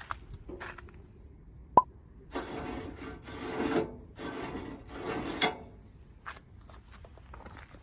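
A sharp click, then two long rubbing strokes, like sanding or filing by hand, the second ending in a sharp scrape.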